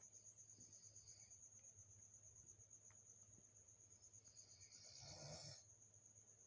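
Near silence: a faint, steady, high-pitched pulsing trill throughout, with a brief soft rustle about five seconds in.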